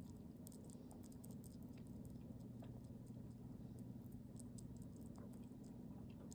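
Faint, irregular, quick high clicks of a baby sugar glider eating, over a steady low hum.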